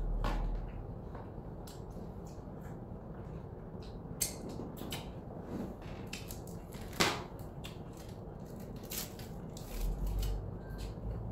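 Scattered light clicks and scrapes of a plastic fork against a plastic takeout salad container. One sharp click about seven seconds in, and a plastic wrapper crinkling near the end.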